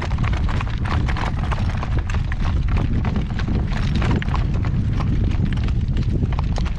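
Hoofbeats of a newly shod horse being ridden, a run of irregular clip-clopping strikes over a low rumble.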